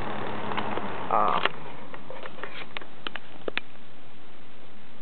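Holmes HABF-110 box fan just switched off, its motor hum dying away in the first second while the blades coast, with a short squeak at about a second in. A few light clicks follow over a steady background hiss.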